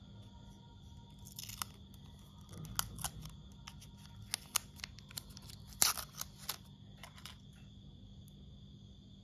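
Protective plastic film being peeled and pulled off a new Apple Watch SE: scattered crinkles and sharp clicks, the loudest about six seconds in, over a faint steady hum.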